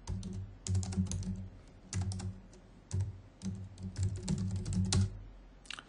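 Computer keyboard being typed on in several short runs of keystrokes with brief pauses between them.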